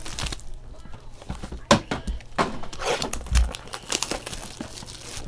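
Hands opening Tier One baseball card boxes and handling foil-wrapped card packs: rustling and crinkling with scattered taps and clicks, a sharp click just under two seconds in and a low thump a little later.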